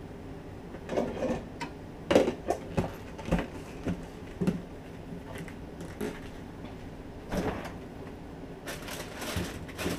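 Irregular knocks, clicks and clatters of things being handled in a kitchen, coming in small clusters with the loudest near the second and a half past two, over a steady low background noise.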